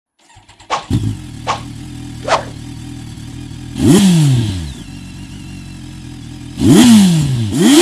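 An engine idling and blipped three times: each rev jumps up sharply and then falls away. The first comes about four seconds in and two close together near the end, with three short sharp swishes before them.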